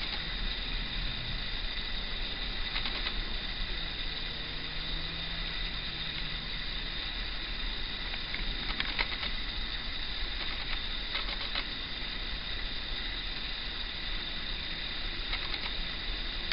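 Steady hiss with the faint low hum of a distant Class 56 diesel locomotive running light and approaching slowly. A few faint clicks come and go.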